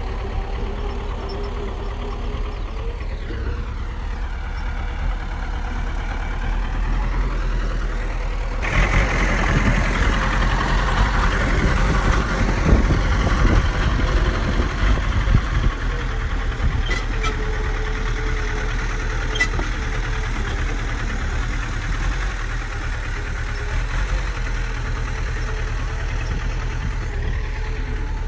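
Bulldozer's diesel engine running steadily, growing louder and rougher for several seconds from about nine seconds in before settling back.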